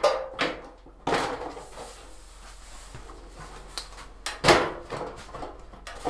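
The back cover of a 42-inch Panasonic plasma TV being pulled up off the set: scraping and knocking, with the loudest knock about four and a half seconds in.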